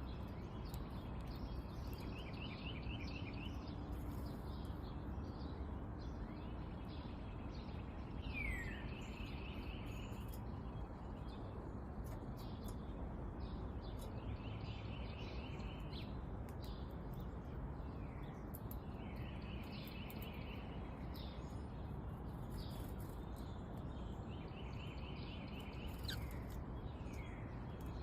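A small songbird singing a short rapid trill of repeated notes, five times at intervals of about five to six seconds, with a few quick down-slurred chirps between, over a steady background noise.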